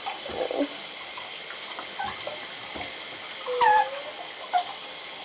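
Water running steadily from the tap into a bathtub. A wet Maltese puppy gives a short whimper about three and a half seconds in, and a briefer one about a second later.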